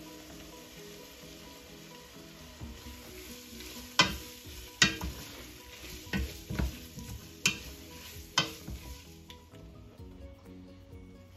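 Pulled chicken and onions sizzling in butter in a stainless steel pan, stirred with a wooden spoon that knocks sharply against the pan about six times. The sizzle drops away near the end.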